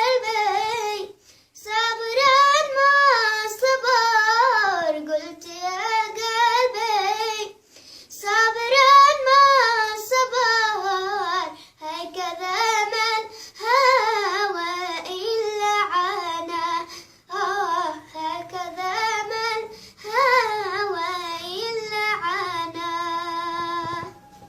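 A young girl singing alone without accompaniment, in long ornamented phrases that wind up and down in pitch, broken by short breaths; she holds a steady final note near the end.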